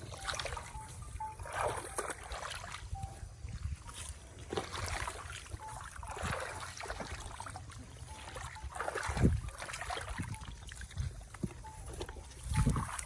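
Shallow water sloshing and splashing in repeated strokes, with two heavier splashes about nine seconds in and near the end.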